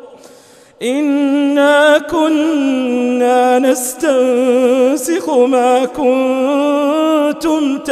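A male reciter chanting the Quran in slow, melodic tarteel, holding long drawn-out notes with vibrato. He comes in about a second in, after a brief pause for breath.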